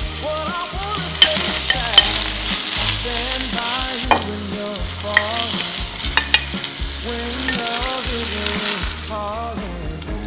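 Minced meat and onion sizzling on low heat in an earthenware pot while being stir-fried with a spoon, which clicks and scrapes against the pot several times.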